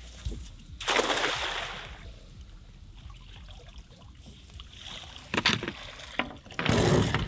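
A cast net splashing down onto the water about a second in. Near the end come more splashes as the net is hauled up out of the water, with water pouring off it.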